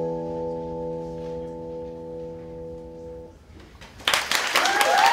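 A band's final chord held steady, then cut off a little past three seconds in. About four seconds in, the audience breaks into loud applause with high whooping cheers over it.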